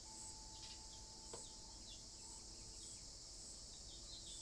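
Faint nature ambience: a steady, high-pitched chirring of insects that pulses in a regular rhythm, with scattered short, quick bird chirps over it.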